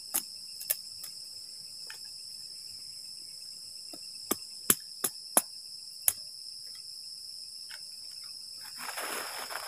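Sharp, irregular knocks of wooden stakes being struck and driven into the ground, about nine blows, over steady chirping crickets. Near the end a rustling, scraping noise sets in.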